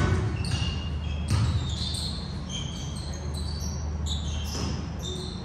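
Basketball game sounds in a large gym: a ball bouncing on the hardwood court and short high sneaker squeaks, echoing, over a steady low hum.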